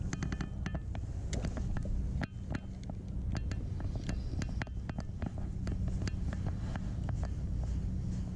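Wind rumbling on an action camera's microphone, with irregular ticks and clicks from a Daiwa Crest 3000 spinning reel being cranked and handled during the retrieve.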